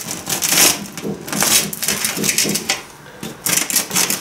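A knife sawing back and forth through a loaf of homemade pide, the crisp crust crunching with each of several strokes.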